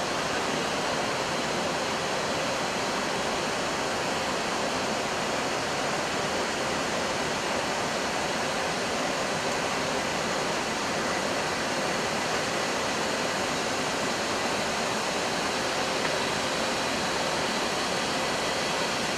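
Steady rushing noise on an Airbus A320 flight deck in flight: air streaming past the cockpit and the ventilation fans, with a faint steady hum under it.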